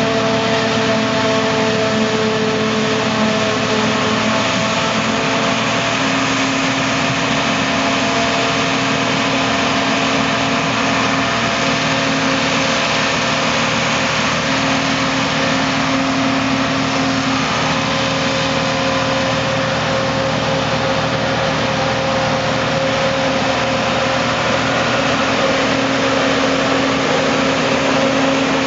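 John Deere 5830 self-propelled forage harvester running steadily while chopping maize: a continuous loud mix of engine noise and several held tones, with no pauses.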